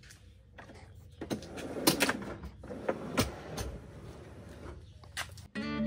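A plywood drawer box being handled and pushed into an SUV's cargo area: a scattered run of wooden knocks and scrapes. Acoustic guitar music comes in near the end.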